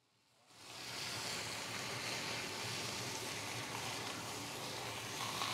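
Salmon fillet sizzling on a hot flat-top griddle as it is turned, a steady hiss that comes in after a brief dropout at the very start.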